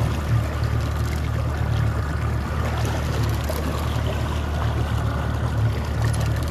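A boat's motor running steadily while underway, a constant low drone, with water rushing past the hull.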